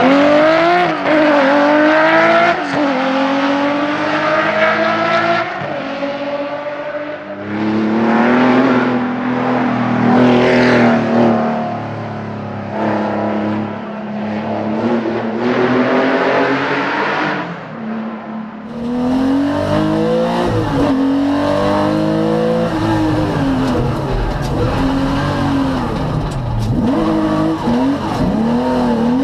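Porsche 911 SC rally car's air-cooled flat-six engine revving hard and dropping back again and again as the cars are driven through corners and past. About 19 seconds in the sound moves inside the cabin, the same engine rising and falling with throttle and gear changes.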